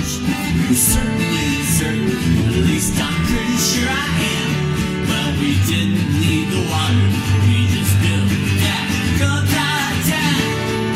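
Twelve-string acoustic guitar strummed in a steady rhythm, with a man singing over it at times.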